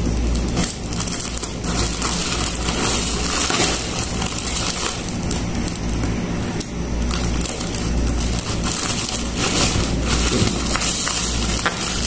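Plastic courier mailer bag crinkling and rustling as it is pulled open by hand and a bubble-wrapped package is drawn out, a continuous crackle of many small clicks over a steady low hum.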